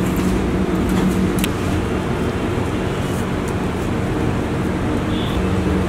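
Steady mechanical hum with a constant low drone, and a few faint clicks over it.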